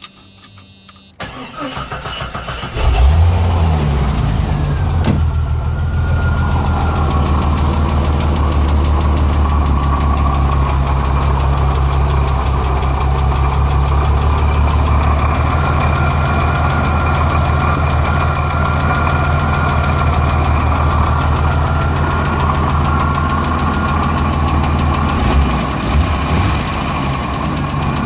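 Jeep Renix 4.0 straight-six cranking and catching about three seconds in, then idling steadily with a rocker-arm tick. The tick follows backing off the number 6 exhaust rocker to cure a misfire, and the owner wonders whether a weak valve spring is the cause.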